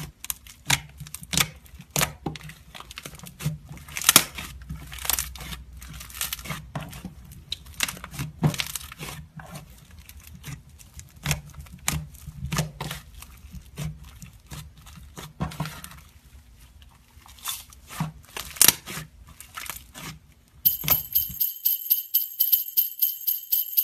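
Hands squishing and pulling fluffy slime: irregular sticky crackles and pops, some louder than others. Near the end it cuts to jingle bells ringing in a steady rhythm.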